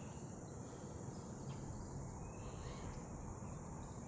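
Crickets chirping in a steady high-pitched chorus, over a faint low background hum of open air.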